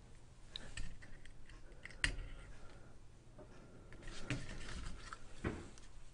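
Faint, scattered clicks and light taps of hands at work: a jumper wire being pushed into a solderless breadboard, then the camera being handled. There is one sharper click about two seconds in, and small clusters of taps past the middle.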